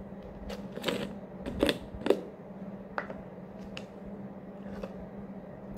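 Clicks and knocks of a clear plastic cookie jar being handled, with two sharper knocks about one and a half and two seconds in, over a steady low hum.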